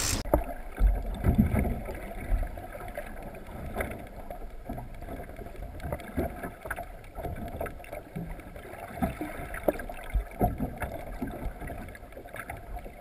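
Muffled water sounds heard through a camera held underwater: a low, even wash with irregular knocks and small clicks.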